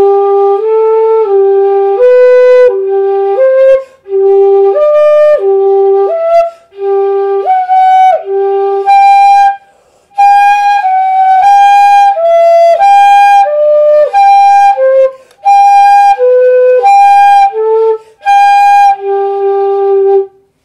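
Pífano, a Brazilian bamboo fife in G, playing a scale exercise in short separate notes. A low G alternates with each note of the scale as it climbs. Then, from about halfway, the G an octave higher alternates with each note as the scale comes back down.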